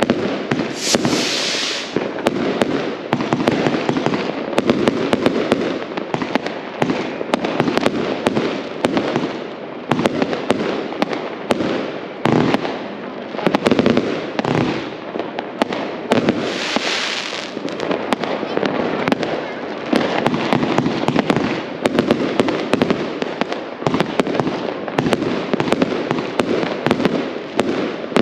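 Fireworks going off in a dense, unbroken barrage of bangs and crackles, with a brief high hissing burst about a second in and again about seventeen seconds in.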